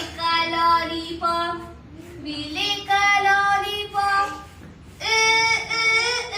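A child singing a simple tune in short phrases of held notes.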